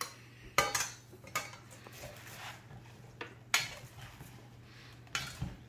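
Salad being tossed with plastic salad servers in a stainless steel bowl: a few scattered knocks and clicks of the servers against the metal bowl.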